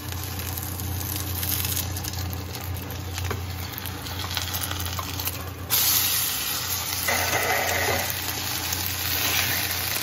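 Batter pancake frying in hot oil in a nonstick pan, a steady sizzle that gets louder about six seconds in, over a steady low hum.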